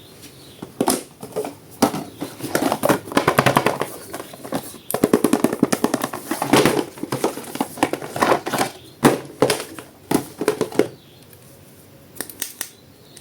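Plastic and cardboard toy packaging crackling and clicking as it is handled and opened, in irregular rapid runs that stop near the end.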